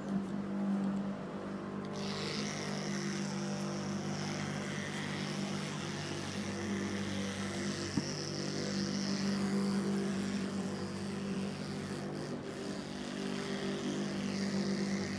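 A steady engine drone holding an even pitch, with a high hiss joining about two seconds in.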